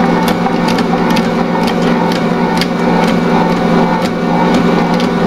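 Assistent Original stand mixer's motor running steadily under load, its roller kneading a stiff 1 kg-flour bread dough around the turning steel bowl, with a hum and a regular knocking about twice a second.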